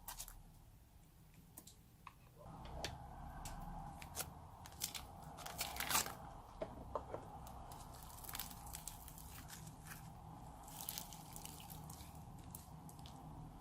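Slime being worked by hand with crunchy foam mixed in, giving irregular crunching and crackling clicks.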